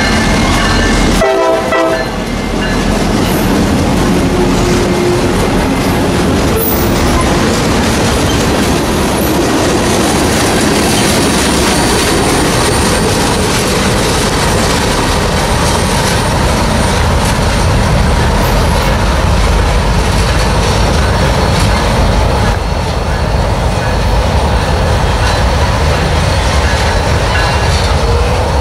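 CSX freight train's cars rolling past steadily on the rails, a continuous loud wheel-and-rail rumble, with a faint high wheel squeal at times in the middle.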